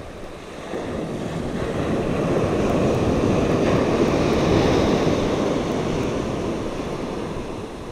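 Ocean surf on a sandy beach: a wave breaking and washing up the shore, swelling from about a second in and fading away toward the end.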